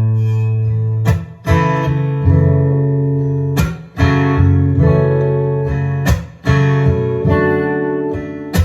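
Acoustic guitar strumming chords in a slow, steady rhythm, with sharp downstrokes about every second or two and the chords ringing between them, in an instrumental passage between sung lines of a ballad.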